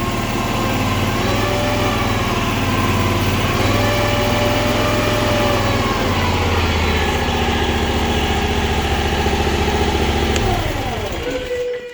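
Land Hero mini skid steer's engine running at high revs with the hydraulic track drive working, the pitch wavering as the load shifts; near the end the engine note drops away. The right track is weak going forward unless the auxiliary mode is engaged, which the owner suspects is a fault in the spool valve.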